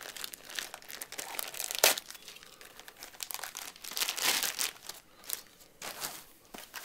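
Plastic packaging bag crinkling and rustling as it is handled and opened, with a sharp crackle about two seconds in and a louder bout of crinkling around four seconds in.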